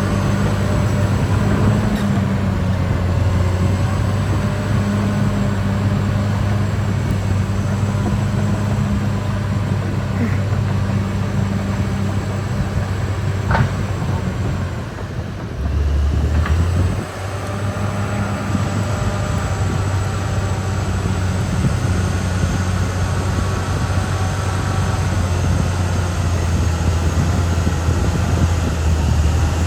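Caterpillar D6R XL bulldozer's diesel engine running steadily under load, with a high whine over it. About halfway through, the engine note drops for a second or two, then picks back up.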